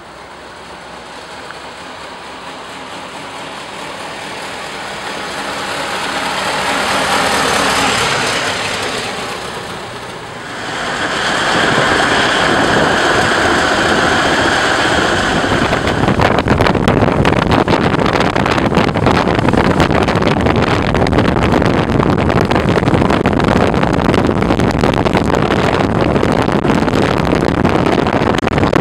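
The four-cylinder engine of a 1911 Delaunay Belleville HB4 veteran car running as the car drives. It grows steadily louder over the first eight seconds, then sounds from on board. From about halfway, wind buffets the microphone heavily over the engine.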